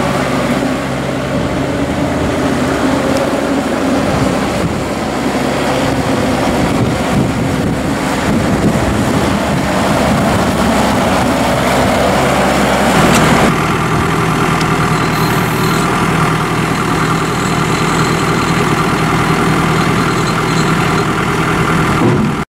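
New Holland Boomer 41 compact tractor's diesel engine running as the tractor drives. About 13 seconds in, the sound changes abruptly to a steadier, even engine note.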